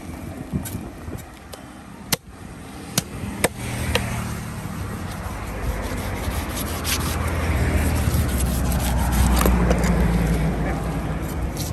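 Big knife blade scraping scales off a large rohu on a wooden block, a continuous rasping scrape, with a few sharp knocks of the blade in the first few seconds. A steady low drone joins underneath from about four seconds in.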